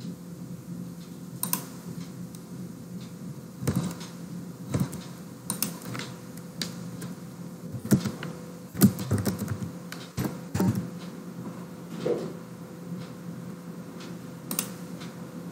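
Computer keyboard keystrokes and mouse clicks, irregular and scattered, typing a file name and clicking through a dialog, over a steady low hum.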